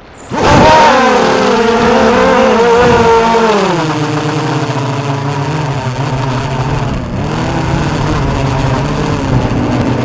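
Walkera F210 racing quadcopter's brushless motors whining under changing throttle. The sound comes back loud about half a second in, its pitch falls around four seconds in and then holds lower with small dips and rises.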